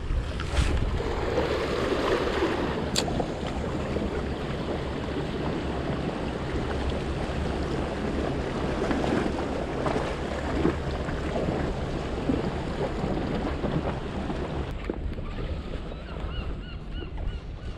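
Wind buffeting the microphone over the steady wash of the sea against a rocky shore, with a couple of sharp clicks in the first few seconds and a few faint high peeps near the end.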